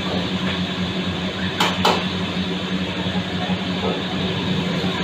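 Wok-kitchen noise: gas burners and a fan running steadily with a low hum, and two sharp clanks of metal on a wok in quick succession, a little over a second and a half in.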